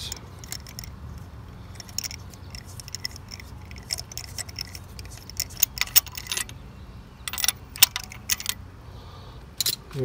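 Metal hand tools clinking and tapping against an engine's cylinder head as a socket extension and a screwdriver are worked in and out of the spark plug bores: irregular sharp clicks, bunched in small clusters.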